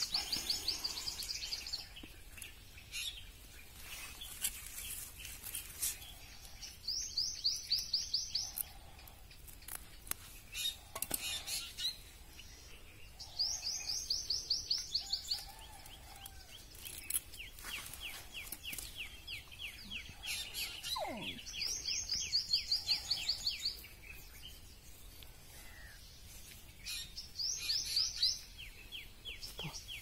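A bird singing short, fast trilled phrases about every six seconds, with a quicker, lower chattering run between some of them. Scattered clicks and rustles come from hands working a fishing net.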